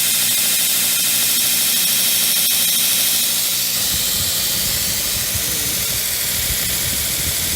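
Shop-built belt grinder running steadily: the abrasive belt hissing over its wheels with the hum of the 2 hp three-phase motor on a VFD. About halfway in, a low, uneven rumble of air buffeting the microphone joins, from the air the running belt throws off.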